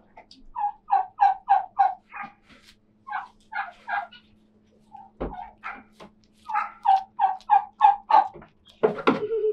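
Male goat making runs of short, quick grunting calls, about three a second, in bursts of four to six with pauses between, and a louder call near the end.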